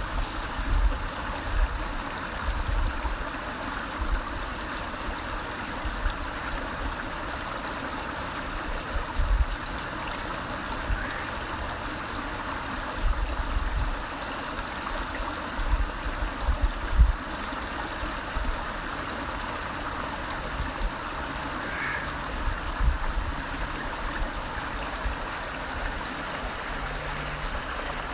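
Small mountain creek trickling and babbling over rocks: a steady rush of water, with irregular low rumbles on the microphone.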